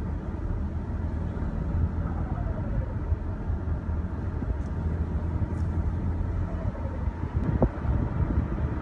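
Turbocharged engine of a 2016 VW Passat running under a low rumble, with a falling whistle from the turbo several times as the throttle is let off: the turbo flutter. A short sharp sound near the end.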